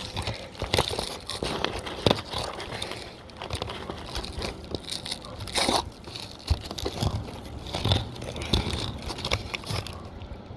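Asphalt roof shingles being bent up and worked by hand, crackling, crinkling and scraping, with a few sharp knocks, as the upper shingle is lifted to get a hammer under it to nail the repair shingle.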